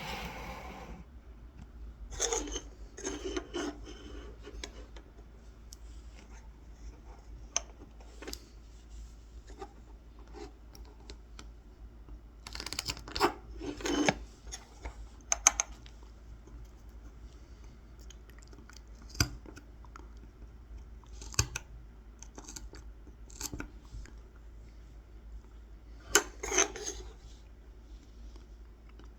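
A small kolrosing knife scoring thin lines into a wooden honey dipper: short, irregular scratchy cuts, some in quick clusters with pauses between.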